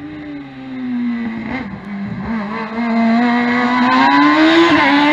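Competition car's engine revving hard as it climbs the course toward the listener, getting much louder. The engine note sinks a little at first, then climbs steadily under acceleration.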